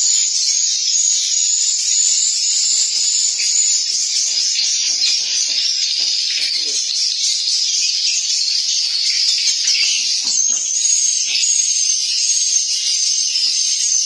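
Dense, steady, high-pitched chirping and twittering of swiftlets filling a wooden swiftlet nest house, with a thin whistle running through the chatter.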